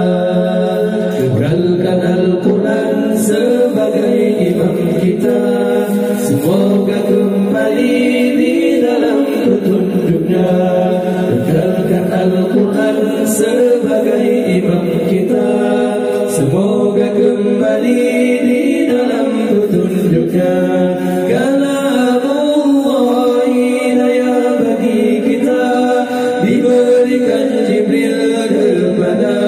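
Several male voices singing an a cappella Islamic nasyid into microphones: a lead melody that bends and ornaments over held harmony parts.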